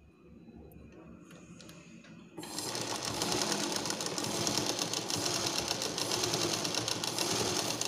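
Sewing machine stitching a seam through the fabric, starting suddenly about two and a half seconds in after a few faint clicks, running steadily at speed, and stopping at the end.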